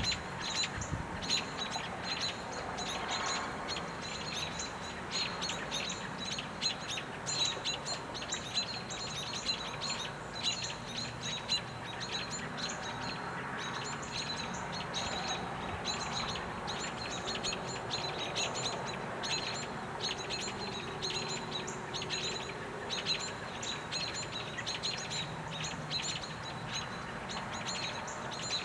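Small birds giving short, high chip calls over and over, about two or three a second, with no owl hooting heard.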